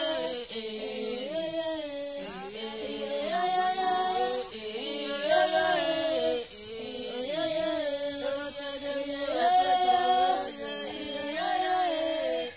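African pygmy singing: unaccompanied voices gliding between held notes, with a steady high chirring of crickets behind them.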